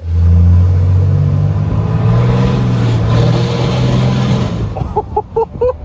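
Cummins inline-six turbo-diesel in a pickup, just deleted and tuned, revved hard and very loud. It comes in suddenly, climbs in pitch about two seconds in, holds, then dies away near the end.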